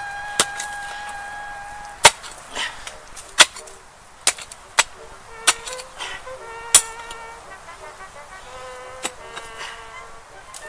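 Mattock striking hard soil with buried wire while a fence trench is dug: about eight sharp blows at uneven gaps of a second or so. Background music plays under it.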